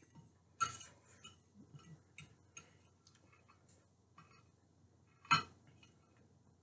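Faint scattered clicks and taps of a metal fork against a plate as the last scraps of food are gathered up, with one sharper click about five seconds in.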